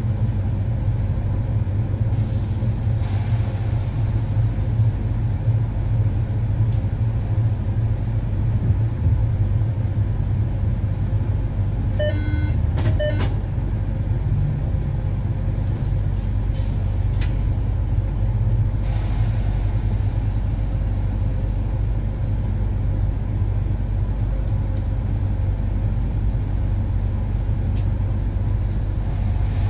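Steady low rumble of a moving train heard from the driver's cab, with a short run of sharp ticks about twelve seconds in.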